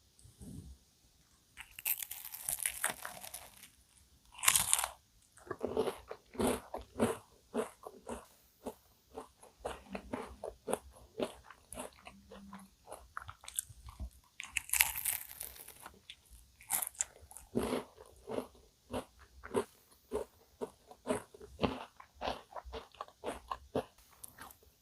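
Close-up eating of a crisp cookie-crusted cream puff: loud crunchy bites near the start and again about midway, each followed by steady chewing at about two chews a second.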